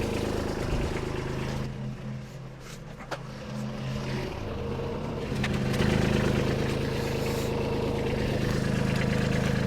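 Kubota B2601 compact tractor's three-cylinder diesel engine running steadily. It drops quieter for a couple of seconds, then comes back louder about six seconds in, with a single click near the three-second mark.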